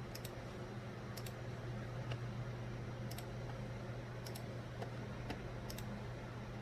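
Sharp clicks of a computer being operated, several coming in quick pairs like double-clicks, every second or two, over a steady low hum.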